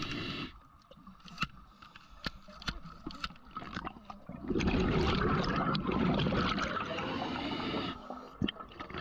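Scuba diver's exhaled breath bubbling out of the regulator underwater: a loud rushing, gurgling burst that starts about halfway through and lasts three or four seconds, with a brief one at the very start. Sharp clicks are scattered throughout.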